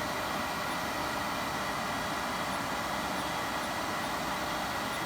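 Mitsui MSG-205MH surface grinder's spindle and grinding wheel running at full speed, 3470 rpm, on its variable frequency drive: a steady, even whir, running very smooth.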